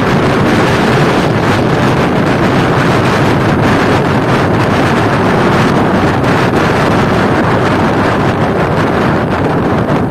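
Loud, steady wind buffeting a phone's microphone on a moving motorcycle, a dense rushing rumble that covers any engine or road sound.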